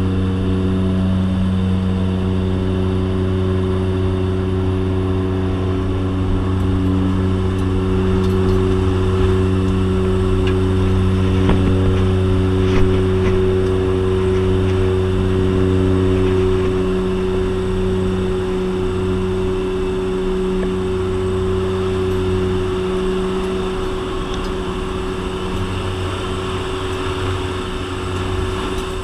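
Jump plane's engines and propellers droning steadily, heard from inside the cabin, easing off a little in the last third.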